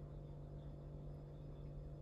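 Quiet room tone with a steady low hum; the spoon spreading soft glaze makes no distinct sound.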